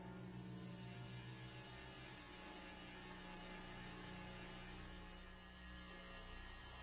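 Faint, low, steady humming drone with a light hiss over it, the texture shifting a little about two seconds in.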